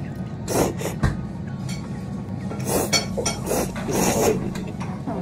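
Instant ramen being eaten: a series of irregular, noisy slurps of noodles, with a few light clinks against the bowl.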